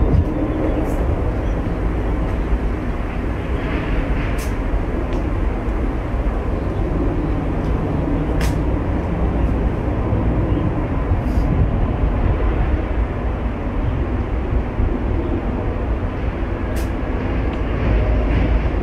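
Steady low rumble of wind buffeting the microphone, with a few faint sharp ticks spread through it.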